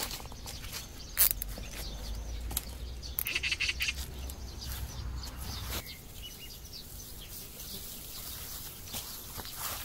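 Gloved hands twisting tie wire around plastic-coated garden hoop poles, making rustles and small clicks, with a sharp click about a second in. Wind rumbles on the microphone through the first half.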